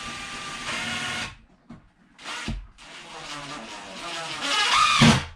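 Cordless drill-driver driving a screw into wood in three trigger pulls: a run that stops about a second in, a short burst, then a longer run that builds and rises in pitch before cutting off sharply near the end.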